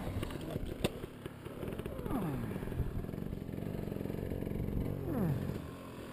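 Dirt bike engine approaching and slowing, its revs falling steeply twice, about two seconds in and again about five seconds in, as the throttle is closed. A single sharp click comes under a second in.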